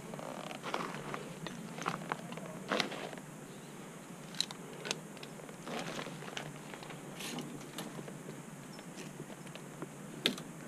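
Irregular clicks, rustles and crackles of a tree climber's rope and metal climbing hardware being handled and shifted among twigs and leaves, with a few sharper clicks scattered throughout.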